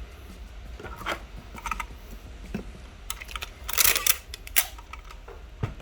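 Scattered clicks and short rustling scrapes of a handheld tape gun dispensing tape, which is being pressed onto the phone, over a steady low hum.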